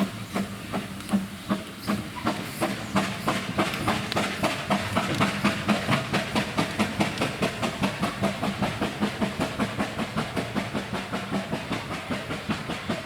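Narrow-gauge steam locomotive moving off, probably the Hunslet saddle tank Blanche. Its exhaust beats quicken from slow chuffs about a second apart to about four a second, over a steady steam hiss.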